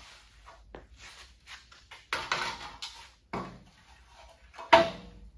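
Clanks and scrapes of a rusty sheet-steel Model A cowl section being lifted and shifted about, with a sharp clank near the end.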